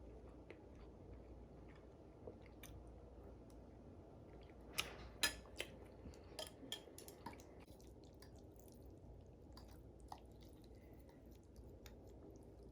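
Faint eating sounds: a person chewing a mouthful of noodles, with scattered small clicks and a cluster of sharper clicks about five seconds in.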